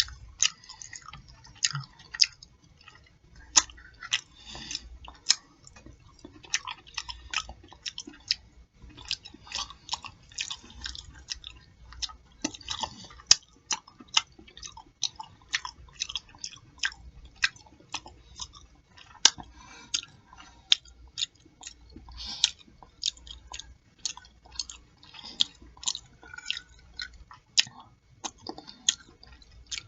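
A person chewing and smacking a mouthful of pork chop plate close to a turned-up microphone. Wet mouth clicks and smacks come several times a second with short pauses between bites.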